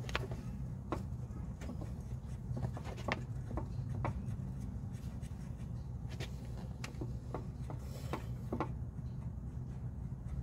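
Clothing brushing and rubbing close to the microphone, with scattered light clicks and taps, over a steady low rumble.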